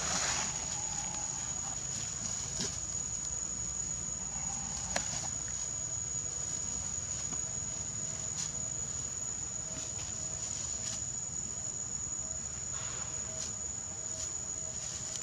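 Steady high-pitched insect drone, with a few short rustles and clicks in dry leaf litter.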